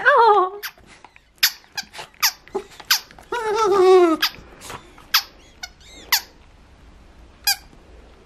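Rubber squeaky ball squeaking as a dog bites and squeezes it. Two longer, wavering squeals, one at the start and one about three and a half seconds in, come among several short, sharp squeaks.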